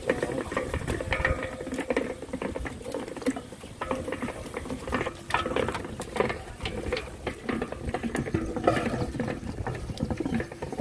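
A wooden paddle stirring and scraping in a large aluminium pot of bubbling, oily sauce over a wood fire, with irregular knocks and clicks.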